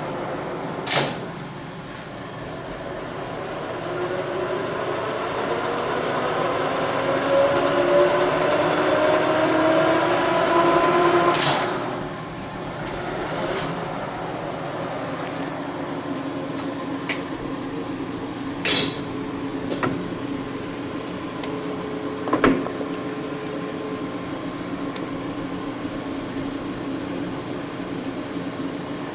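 Economaster 18" x 60" gearhead lathe, driven by a 10 hp three-phase motor, running under power: its gear whine rises in pitch for several seconds as the spindle comes up to speed. A sharp click about a third of the way in is followed by a drop to a steadier, lower running hum, with a few more sharp clicks later on.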